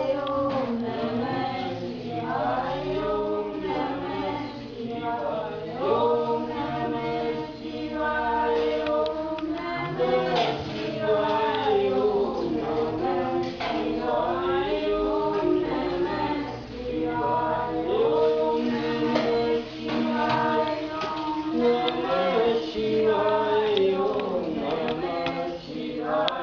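A group of voices singing a devotional chant together, in long held notes that slide from one pitch to the next.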